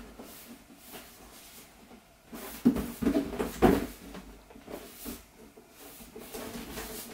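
A large cardboard box being lifted and turned over in the hands, with a few sharp knocks and scrapes of the cardboard in a cluster between about two and a half and four seconds in.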